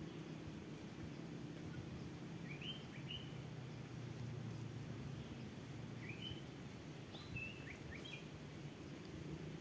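Small birds chirping: a few short, rising chirps in little clusters about two and a half, six and seven to eight seconds in, over a steady low outdoor rumble.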